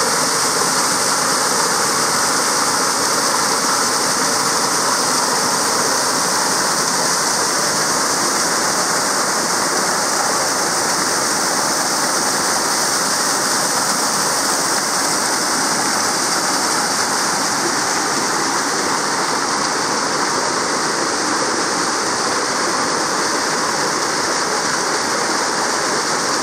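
Rushing water of a mountain stream or cascade: a steady, even rush with no change in level.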